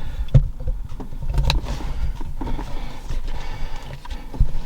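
A few sharp clicks and knocks from hands and tools on the steering-wheel and airbag parts, over a low rumbling handling noise.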